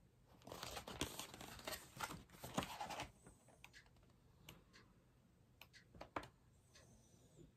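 Paper rustling as a book is handled and its pages turned, for about three seconds, followed by a few faint taps and clicks.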